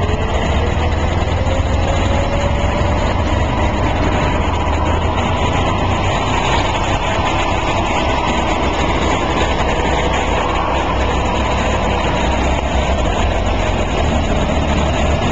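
Engines of antique farm tractors running as the tractors drive past, a steady low rumble with a faint whine that slowly rises in pitch over the first several seconds.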